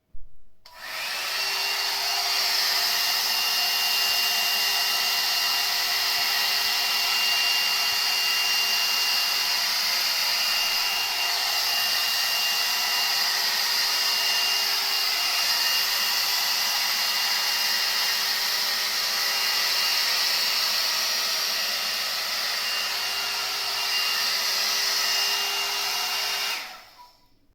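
Hot air brush running: its fan blows a steady rush of air with a thin motor whine. It switches on with a click at the start and cuts off shortly before the end.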